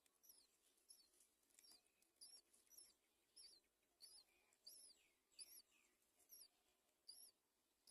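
Nestling birds giving faint, high-pitched squeaky begging calls, short arched notes about twice a second, with a few lower falling notes near the middle.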